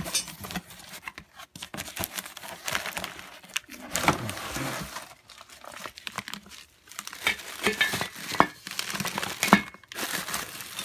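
Plastic packaging crinkling and rustling as it is pulled open and handled, with irregular sharp crackles.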